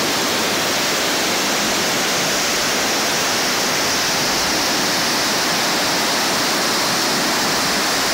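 Water pouring down a concrete reservoir spillway and churning into the stream below, a steady rushing noise.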